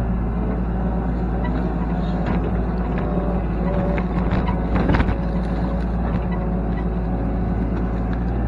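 IHI mini excavator's diesel engine running steadily while it digs, with scattered clicks and one louder knock about five seconds in.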